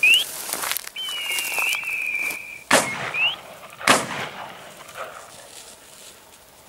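Two shotgun shots about a second apart at a flushed quail. Before them comes a long, steady whistle-like tone that ends in a rising chirp.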